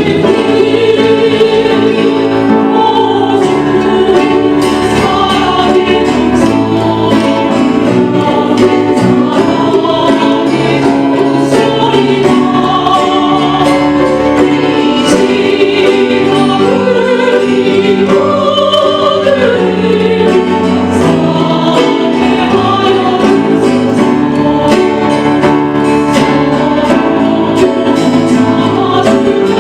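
A small vocal ensemble singing a gospel song in harmony, accompanied by strummed ukulele and guitar.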